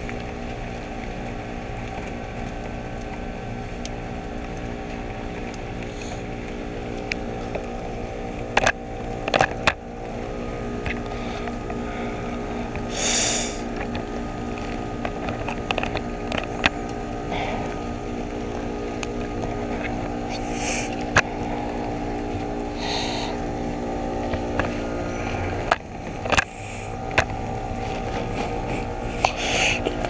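A 2.5-ton Ruud Achiever RP14 heat pump's outdoor unit running just after a defrost cycle, its condenser fan blowing off steam from the melted frost, with a steady hum of several tones. A few sharp knocks and short hissing bursts are heard over it.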